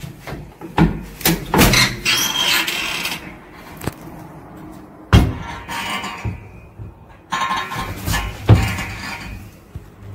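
A series of sharp knocks and clatters with rustling between them in a small room. The two loudest knocks come about halfway through and again near the end.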